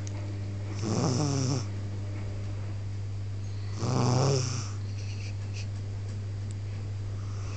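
Snoring: two snores about three seconds apart, each under a second long, over a steady low hum.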